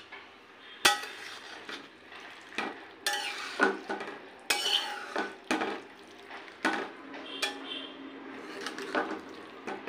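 A metal cooking utensil clanking and scraping against a metal karai as the ingredients are stirred, with sharp, irregular clanks every second or so.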